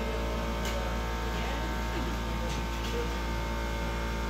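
Steady hum and drone of glassblowing-studio equipment, the glass furnace and its blowers, under faint background chatter. A couple of light clicks come about half a second and two and a half seconds in.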